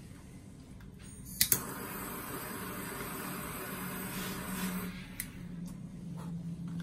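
Handheld butane torch lit with two sharp ignition clicks about a second and a half in, then the steady hiss of its flame for about three and a half seconds while it scorches a paper label, ending with another click.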